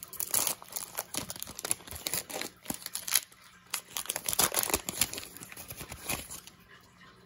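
Foil wrapper of a football trading-card pack being torn open and pulled apart by hand: a run of irregular crinkles and rips that dies down near the end.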